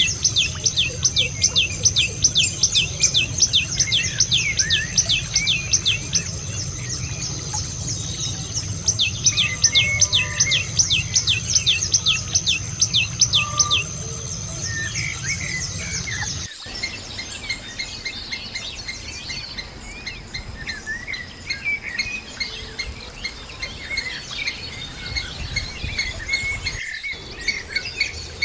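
Birds singing. Two bouts of a fast run of repeated high notes, each falling in pitch, are followed after an abrupt change by a busier chorus of chirps.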